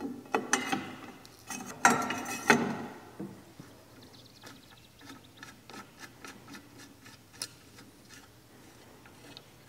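Steel canopy strut clanking several times against its mounting bracket as it is set in place, with a ringing metallic note, followed by a run of faint clicks as a threaded T-knob is turned in by hand.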